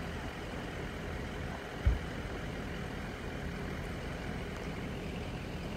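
Steady wind noise on the microphone, with one brief low thump a little under two seconds in.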